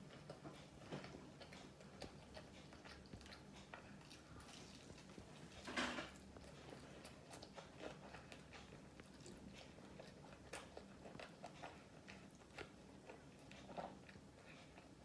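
Close-up chewing and biting of KFC fried chicken, faint, with many small wet mouth clicks and one louder bite about six seconds in.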